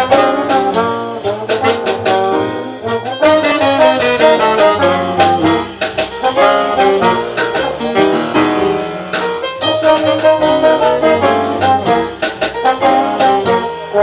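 Live small-group jazz: saxophone and trombone playing over piano, upright double bass and drums keeping a steady beat.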